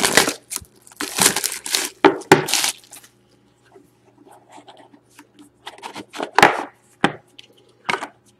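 A cardboard trading-card box being unwrapped and opened by hand: tearing and crinkling in loud bursts for the first three seconds, then softer rubbing, a click and a couple of sharp scrapes as the box is slid apart.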